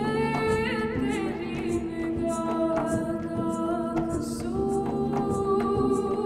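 Female voice singing long, slowly gliding held notes, wavering with vibrato about a second in, over plucked double bass.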